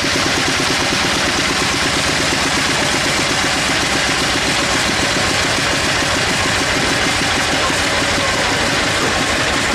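Sawmill engine running steadily at an even speed with a rapid low throb.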